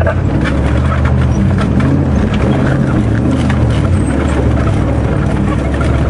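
Old Toyota Landcruiser four-wheel drive driving over a rough dirt track: its engine runs steadily, with frequent knocks and rattles from the vehicle over the bumps.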